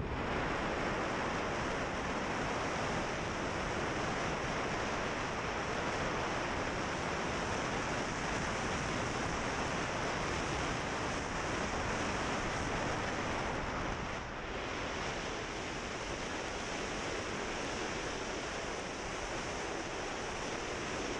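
Steady rushing wind noise on the microphone of a camera mounted on a moving motorbike, easing slightly about two-thirds of the way through.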